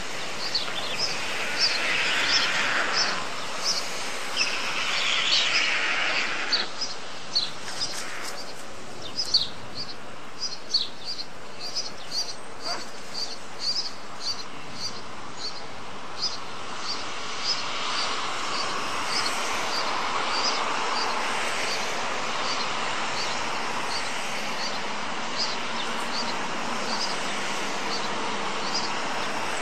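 A small songbird chirping repeatedly, short high chirps about one to two a second, over steady outdoor background noise. Two spells of rustling noise come in the first seven seconds.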